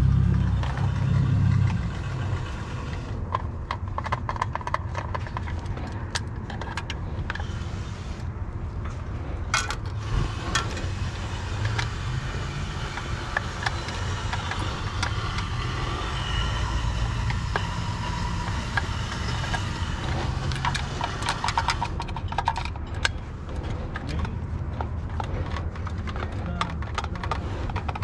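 Metal clinks, clicks and rattles from a stereo amplifier chassis being taken apart by hand, over a steady low rumble.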